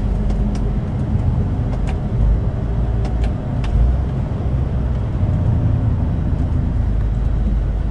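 Heavy truck heard from inside its cab while cruising loaded: a steady low engine drone and road rumble, with a few faint ticks in the first half.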